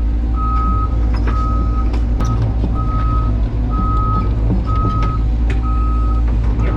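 A backup alarm beeping steadily about once a second over the loud, steady running of a heavy diesel engine, with occasional short metallic clanks.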